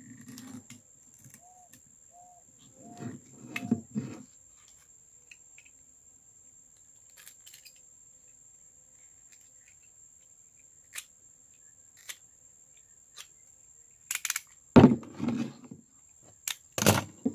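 Knocks, scrapes and a few sharp clicks from a dried carnaúba palm stalk being handled and worked with a utility knife. The loudest bursts come near the end.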